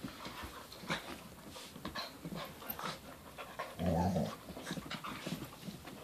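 Dogs play-wrestling, a puppy with border collies: panting and scuffling of paws and bodies, with one short low growl about four seconds in.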